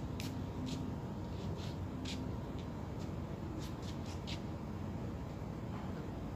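Steady low rumble of a large ship's machinery heard on deck, with a faint steady hum, and a scatter of light ticks and clicks during the first four and a half seconds.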